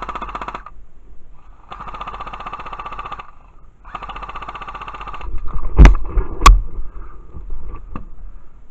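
Airsoft gun firing on full auto in three bursts of rapid clicking, each lasting over a second. About six seconds in come two loud thumps, a half-second apart, and a few lighter knocks.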